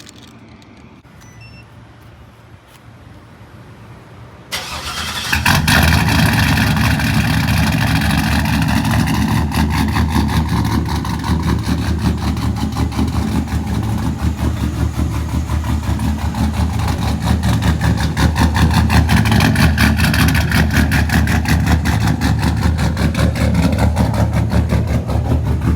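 A pickup truck's engine starts about four and a half seconds in, after a quiet stretch, and catches within about a second. It then settles into a loud, steady idle with a fast, even exhaust pulse.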